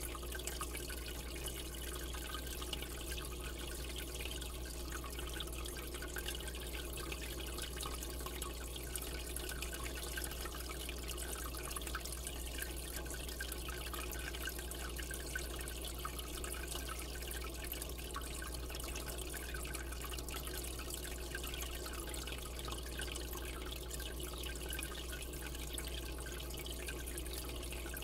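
Aquarium water circulating, with a steady trickling and splashing of water and a low hum beneath it.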